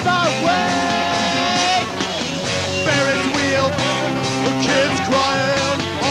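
Live rock band playing a song: a melody line that holds and bends over a steady, full band.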